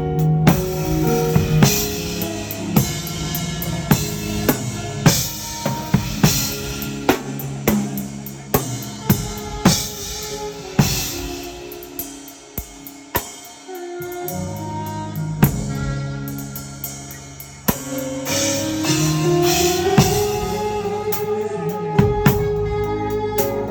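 Music with a full drum kit, kick, snare and rimshots, over bass and held melodic notes. About halfway through, the bass and kick drop out for a moment before the full groove comes back.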